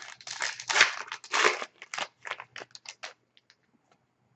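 A 2011-12 Upper Deck SPx hockey card pack being torn open by hand: its wrapper crackles and crinkles in a quick run of tearing sounds. It stops about three seconds in.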